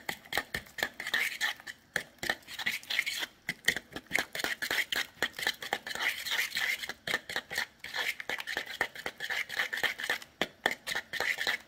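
A metal fork stirring a thick ricotta and egg mixture in a bowl, its tines clicking and scraping against the bowl in quick, irregular strokes.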